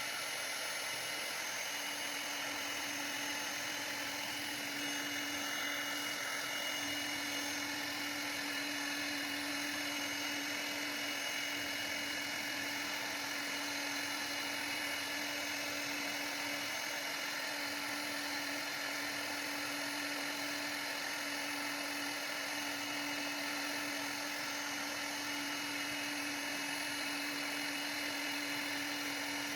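CNC router spindle running steadily with a high-pitched whine, starting abruptly at the beginning.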